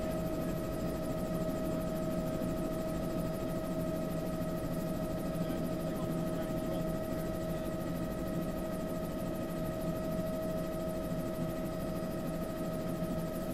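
Bell 206B-3 JetRanger helicopter in steady cruise, heard from inside the cabin: a constant turbine and rotor din with a steady high whine running through it.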